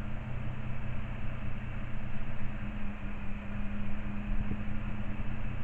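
Steady low mechanical hum with a few constant tones over a background rush, unchanging throughout.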